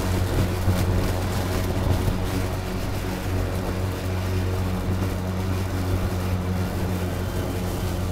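EGO Power+ LM2135SP 56 V battery self-propelled lawn mower running while being pushed through clover and grass. Its brushless blade motor gives a steady low hum over the hiss of the spinning blade cutting, with a few brief knocks in the first two seconds.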